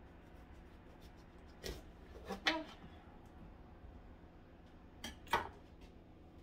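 Knife knocking on a cutting board in a rough chop: a few scattered knocks in three groups rather than a steady rhythm, the loudest near two and a half seconds and five seconds in.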